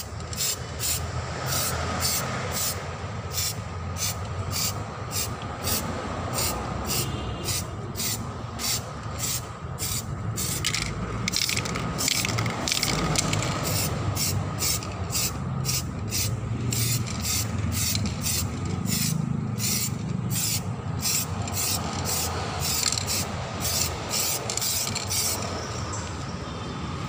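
Samurai aerosol spray-paint can sprayed in short hissing bursts, about two a second, as the nozzle is tapped on and off; the bursts stop near the end.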